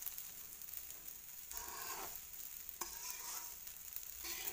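Washed raw rice frying in oil and ghee in a metal pot with a steady, faint sizzle, stirred and scraped by a steel spoon in a few strokes, the longest about a second and a half in. The rice is being toasted before water goes in for pulao.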